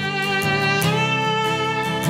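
Music: a violin plays a held melody, sliding up to a higher note a little under a second in, over a guitar accompaniment.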